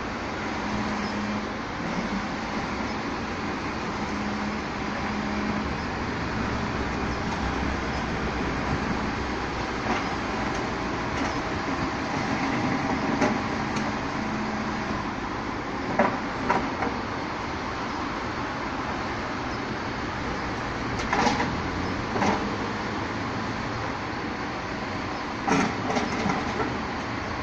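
Rotopress garbage truck running steadily while bulky waste is loaded into its rear, with a sharp clank or bang every few seconds as items land in the hopper; the loudest knocks come about two-thirds through and near the end.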